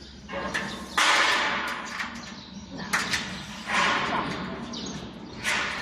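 Metal workstation parts being handled during assembly: a series of sharp scrapes and knocks, the loudest about a second in and others following every second or two.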